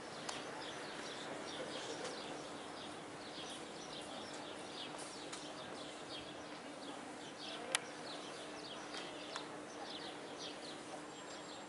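Small birds chirping over outdoor ambience, many short calls in an irregular stream. A steady low hum runs under them. A single sharp click comes about two-thirds of the way through.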